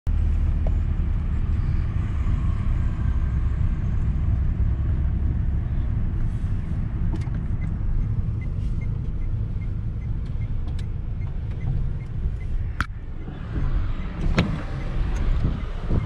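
Engine and road noise of a moving car heard from inside the cabin, a steady low rumble. A faint, evenly spaced ticking runs for a few seconds in the middle, and two sharp clicks come near the end.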